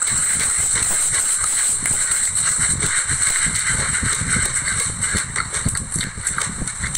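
Wooden spoon scooping and stirring dry white sesame seeds mixed with passion fruit in a glass bowl, a dense gritty rustle of many small crackles, together with close-miked chewing of the seeds.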